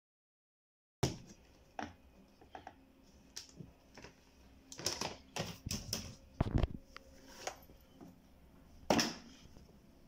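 After a second of dead silence, irregular plastic clicks and knocks as the spin-dryer side of a twin-tub washing machine is opened and the spun clothes are handled in its basket. The two loudest knocks come about six and a half and nine seconds in.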